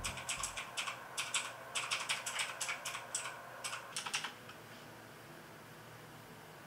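Typing on a computer keyboard: a quick, uneven run of key clicks that stops a little over four seconds in, leaving faint room hiss.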